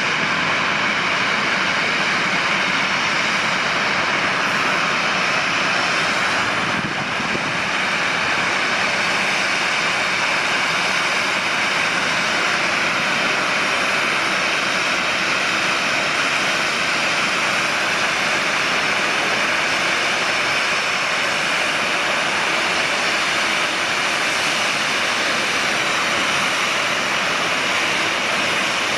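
Boeing 737-800's CFM56-7B jet engines running at taxi power as the airliner rolls slowly close by: a steady, even rush of jet noise with a faint whine.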